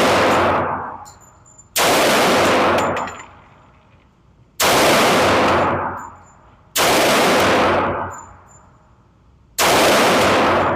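Four single gunshots at a shooting range, spaced two to three seconds apart in slow, deliberate fire, each very loud with a long echoing tail.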